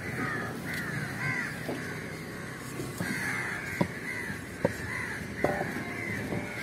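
Crows cawing over and over, with sharp chops of a cleaver striking through a large trevally's head into a wooden chopping block; the three loudest chops come a little under a second apart past the middle.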